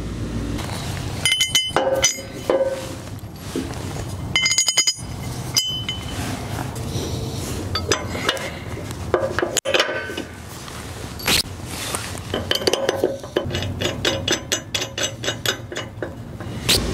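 Steel weight-distribution hitch brackets, bolts and nuts clinking and knocking as they are handled and fitted onto the trailer frame. A few ringing metallic clinks come first, then a quick run of small clicks near the end.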